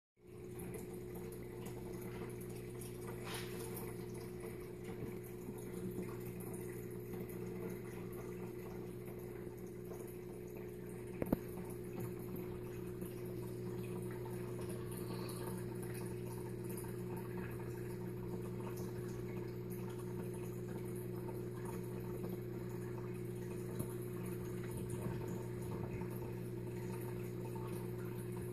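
Steady low hum, with faint water sounds over it and one sharp click about eleven seconds in.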